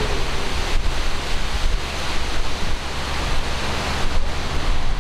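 Gusting wind noise on the microphone over the steady low hum of a widebeam canal boat's engine under way.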